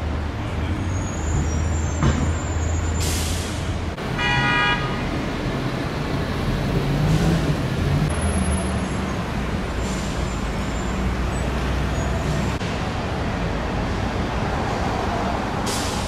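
Busy airport roadway traffic, with the low, steady running of heavy vehicle engines. A burst of air-brake hiss comes about three seconds in, and a short horn toot follows about a second later.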